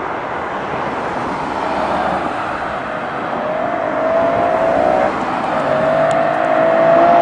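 Aston Martin DBS's 6.0-litre V12 accelerating hard, its pitch rising, with a brief break about five seconds in before it climbs again, growing louder as the car comes on.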